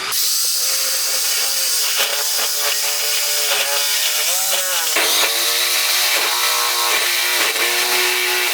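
Electric drill running under load, boring a hole bigger with a larger bit. The motor's pitch sags and recovers several times as the bit bites, over a steady hiss of cutting.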